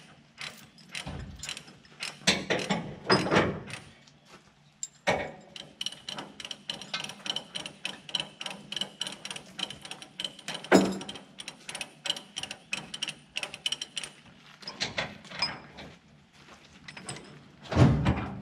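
Ratchet chain binder being cranked on a trailer's tie-down chain: runs of rapid clicking from its pawl, pausing briefly twice, with a heavier thump near the end.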